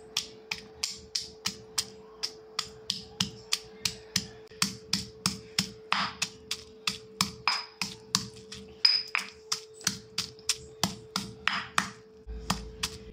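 Stone pestle pounding a spice paste in a granite mortar: steady strikes, about four a second, stopping shortly before the end.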